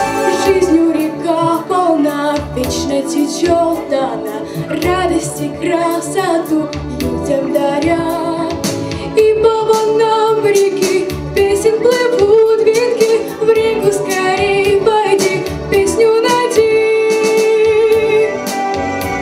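A song performed with a high-voiced melody line over an accompaniment with a steady drum beat.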